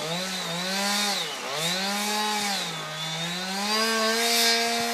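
Chainsaw cutting through a tree section, its engine speed sagging under load and picking back up about three times, then running steadier near the end.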